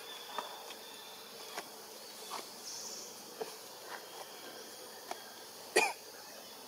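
Forest insects buzzing and chirping steadily, with scattered faint clicks and one short, sharp, louder sound a little before six seconds in.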